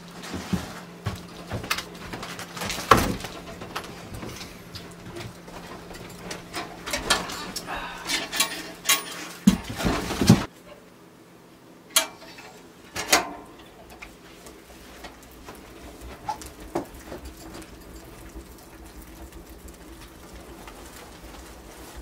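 Knocks and clatter of firewood and the door of a small wood stove as a fire is laid and lit, over a steady low hum. About ten seconds in, the sound drops off abruptly, leaving only a few scattered clicks.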